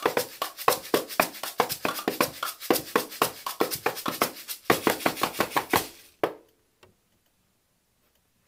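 Ensemble of everyday household objects played as percussion: a fast, dense run of taps and knocks on cans, bottles and cups. It ends with a final accented hit about six seconds in.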